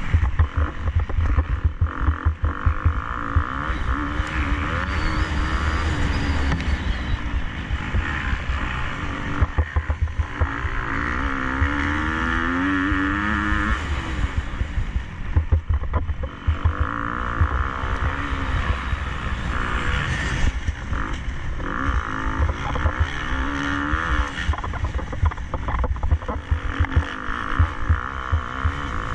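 KTM 250 SX-F four-stroke single-cylinder motocross bike engine revving up and down repeatedly as it is ridden hard around the track. Under it runs a constant low rumble with many short knocks.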